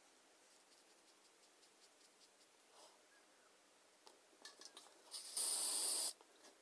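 A short burst of aerosol hairspray, about a second long, near the end, with a few faint rustles and ticks before it.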